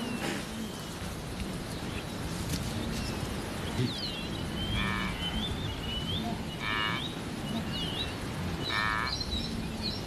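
Wildebeest grunting three times, short nasal calls about two seconds apart. Birds call with quick falling whistles over a steady hiss of open grassland.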